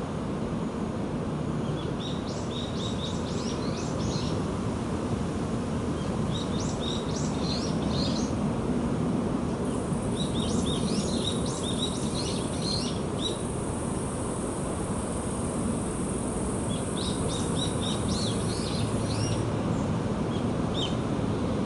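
A small songbird singing bouts of quick, twittering chirps, four times with pauses between, over a steady low rumble.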